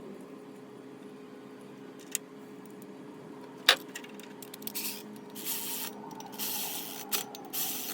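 A water pump pulley being tapped into place with a tool: one sharp metal knock with a brief ring about halfway through, after a small click, followed by several short scraping and rubbing sounds of metal parts being handled, over a steady low hum.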